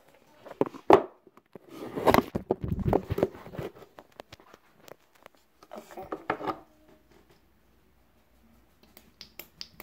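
Fingers rubbing and tapping on the recording phone right by its microphone: irregular clicks and rustles, loudest about two to three seconds in, with a shorter patch near six seconds and a few clicks near the end.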